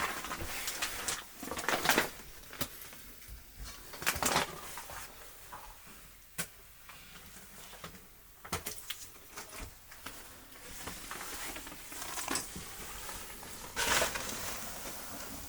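Irregular knocks, clicks and rustles of someone moving through a cluttered room, with sharper knocks about two and four seconds in and again near the end.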